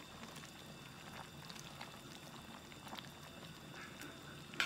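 Budae jjigae stew bubbling at a low boil in a wide metal pot on a portable gas burner, with soft scattered pops of bursting bubbles. A single sharp click sounds near the end.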